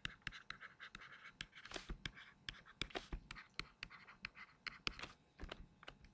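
Faint handwriting with a stylus on a tablet screen: a quick run of sharp taps and light scratching strokes as words are written.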